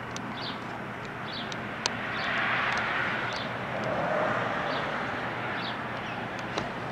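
A passing vehicle's rushing noise swells and fades over a steady outdoor background, peaking about two to four seconds in. Faint high bird chirps repeat throughout, and two sharp clicks sound, one near two seconds in and one near the end.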